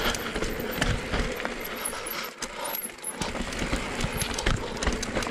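Mountain bike rolling slowly over rock on a forest trail: a steady rattle of tyres on stone, with many quick knocks and clinks from the bike and low thumps as the wheels drop off rocks.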